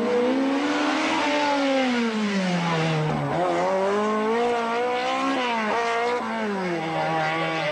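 Simca Rallye II competition car's engine revving hard, its pitch climbing and falling several times as the car accelerates and lifts off, with a sharp drop in revs about three seconds in.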